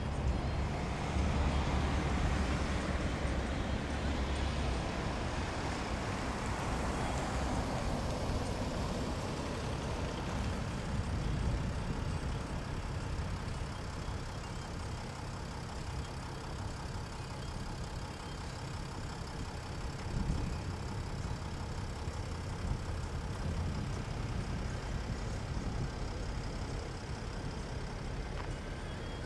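Road traffic: a vehicle passes in the first few seconds, its sound falling in pitch as it goes by, then a steady low rumble of traffic.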